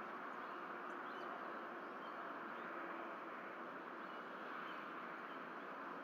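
Steady outdoor hiss from the nest-cam microphone, with a few faint, short bird chirps scattered through it.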